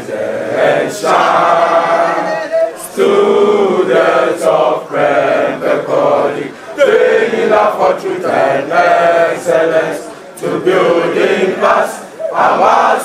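A crowd of male voices singing a chant together, in loud phrases with short breaks between them.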